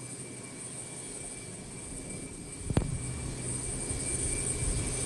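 Open-air airport apron ambience: a steady low rumble like distant aircraft engines, with one sharp click a little under three seconds in, after which the rumble grows slightly louder.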